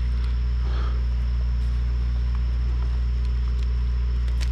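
A steady low mechanical hum, like an engine or machine running without change, with a few faint clicks near the end.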